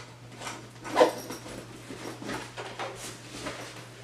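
Handling noise of a plastic Nerf blaster and a backpack being picked up and put on: scattered rustles and soft knocks, the loudest knock about a second in.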